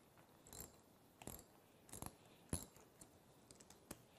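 Faint clicking of a socket ratchet working a manifold bolt loose on a metal diaphragm pump: single clicks about every two-thirds of a second, the loudest a little past the middle, then a few lighter ticks near the end.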